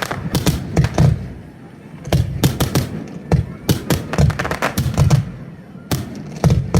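Fireworks display going off: clusters of sharp bangs in quick succession, with brief lulls between them.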